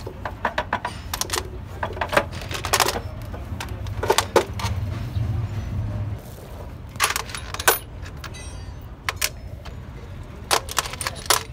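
Metal gearbox parts clinking and tapping as a truck gearbox is put together: irregular clusters of sharp metallic clicks and knocks. A low rumble runs underneath, swelling for a couple of seconds near the middle.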